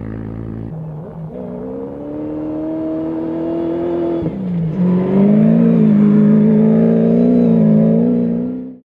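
A quad's engine briefly, then a rally-raid buggy's engine revving up with rising pitch. Its pitch drops sharply at a gear change a little after four seconds in, then it holds high revs until the sound cuts off abruptly near the end.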